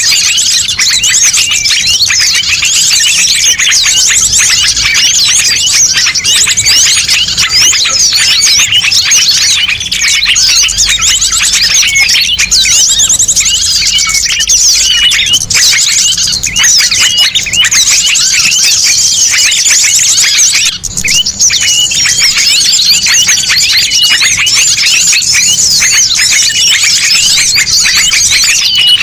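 Loud, dense chorus of many small songbirds chirping and twittering at once, played as a bird-lure recording to draw small birds in. It dips briefly a little past two-thirds of the way through.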